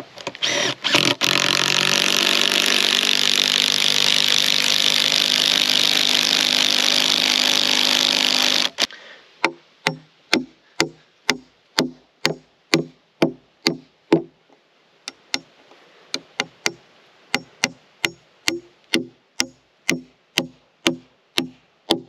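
Cordless impact driver running steadily for about eight seconds as it drives a lag bolt into the green poplar frame, then stopping. A claw hammer follows, striking nails into the timber at about two ringing blows a second, with a short pause midway.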